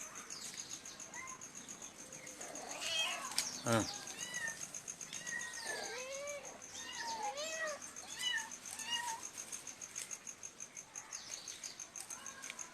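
Kittens mewing over and over in short, high calls, several in quick succession. A sharp knock comes about three and a half seconds in.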